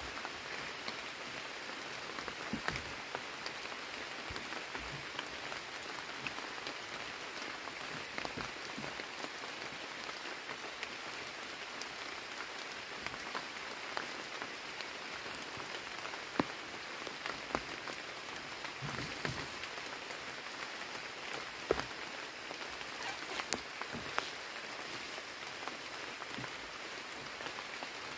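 Steady rain falling on rainforest foliage, an even hiss with scattered sharp taps of drops, a few of them louder.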